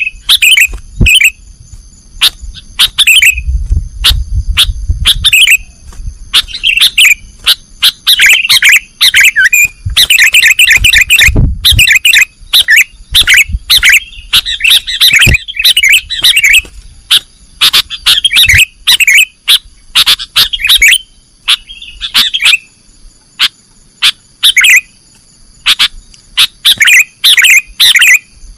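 Sooty-headed bulbul (kutilang) calling loudly in rapid, chattering bursts of chirps, the 'nggaruda' call style, repeated with short gaps between phrases.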